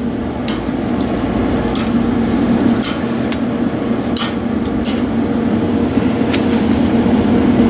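Pellet-grill fan blowing air into a charcoal kettle, running with a steady hum, under several sharp clicks of metal tongs against the wire grill grate.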